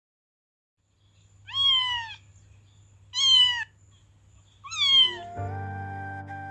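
A cat meows three times, each meow short and falling in pitch, about a second and a half apart. Near the end, background music with sustained notes comes in.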